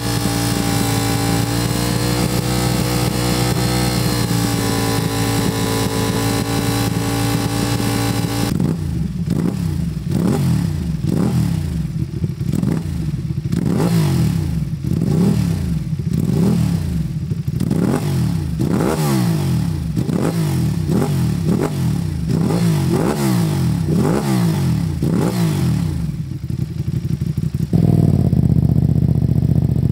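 Ducati Panigale V2's twin-cylinder engine through an Akrapovic titanium exhaust. For about the first eight seconds it is held at a steady high rev of around 7,000 RPM. It then cuts to repeated revs, rising and falling about once a second, before a sudden cut near the end to a steady idle heard from farther away.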